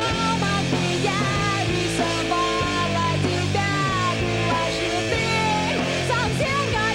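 Rock music soundtrack: a full band with guitars playing steadily, with a wavering melody line on top.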